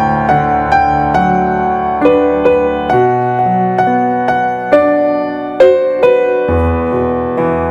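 Slow, gentle piano music: single notes struck roughly every half second over held low chords.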